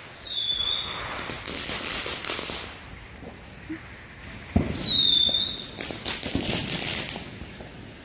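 Fireworks: twice a high whistle falls in pitch and is followed by a couple of seconds of crackling, with one sharp bang about four and a half seconds in.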